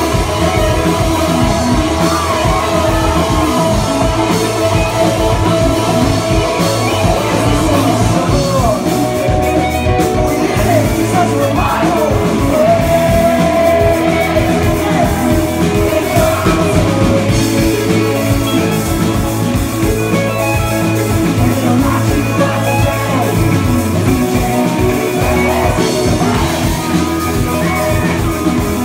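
Live rock band playing a song: electric guitars, bass guitar and drum kit under a lead singer.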